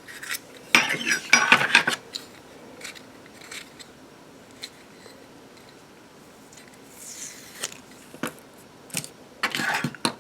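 Small metal clinks and clicks of Zippo lighter cases and inserts being handled on a table. There is a rattling cluster of clinks about a second in, scattered single clicks after it, and another quick cluster near the end.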